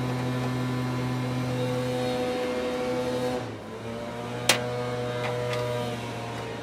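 A steady low hum, probably from an electrical appliance, shifts slightly about three and a half seconds in. One sharp click comes about a second later.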